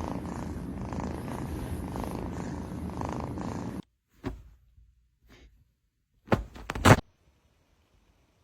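Domestic cat purring steadily, cutting off suddenly about four seconds in; a few short thumps follow.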